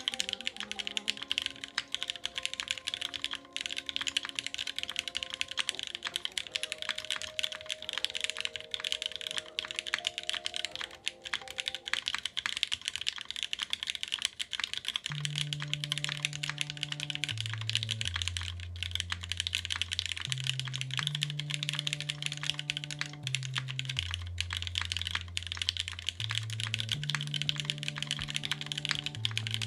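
Fast, continuous typing on a custom mechanical keyboard: a Vertex Angle R2 with Gateron Oil King switches (filmed, not lubed), an FR4 plate, GMK keycaps, and case foam. The builder finds its sound very tinny.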